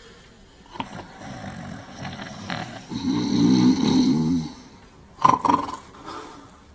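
Two men snoring in a cell. A long, loud snore runs from about three to four and a half seconds, then a shorter snore comes just after five seconds, with fainter breathing before them.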